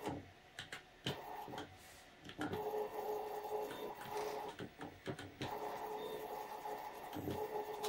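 Stepper motor turning a 3D-printed gear and rotary plate at slow speed, a steady mid-pitched whine from the stepping. It pauses briefly over the first couple of seconds, with a few clicks there.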